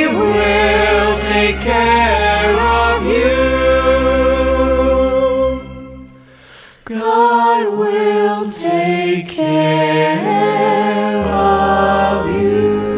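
Choir singing with a string orchestra of violins, cellos and double bass. The music falls away for about a second roughly halfway through, then comes back in.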